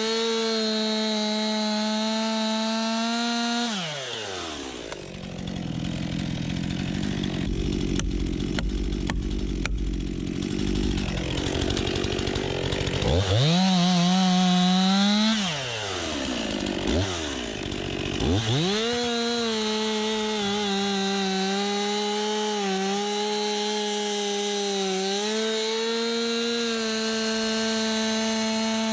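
Stihl MS 261 two-stroke chainsaw run at full throttle, cutting wood. Twice the engine's high pitch falls away as the throttle is let off, then climbs back to a steady scream.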